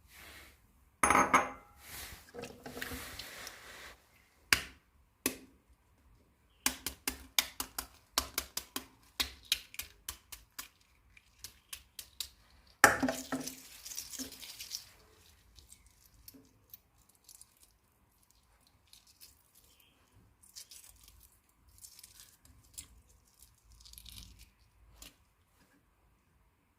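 Dishes and cutlery being handled: sharp clinks and clatters, with two louder clattering knocks about a second in and about halfway, and a quick run of light taps between them, then only faint scattered clinks.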